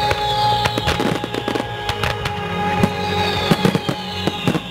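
Fireworks display: aerial shells bursting in a rapid run of sharp bangs and crackles, packed closer together near the end, over a music soundtrack.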